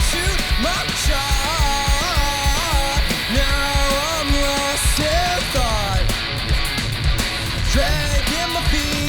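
Two-piece punk rock band playing live: electric guitar and drums, with steady drum hits under a melodic line of held notes that bend up and back down.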